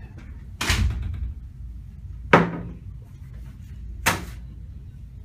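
Three sharp knocks about a second and a half apart, the middle one the loudest: a door shutting and things set down hard on a wooden table.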